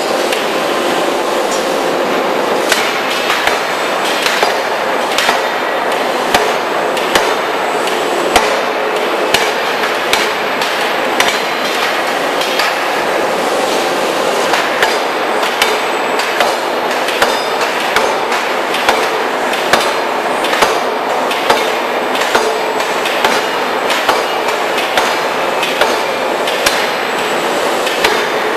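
Open-die forging hammer striking repeatedly at about one blow a second, each blow a sharp impact over a steady, loud, noisy machine din.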